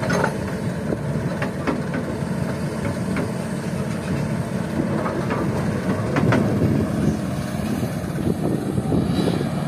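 Kobelco SK200 excavator's diesel engine running steadily as it empties a bucket of sand and gravel into a dump truck's steel bed, with a few sharp knocks scattered through.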